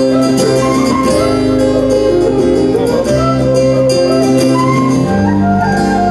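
Scottish folk band playing an instrumental passage live: strummed acoustic guitars under a flute melody, with a steady bass line.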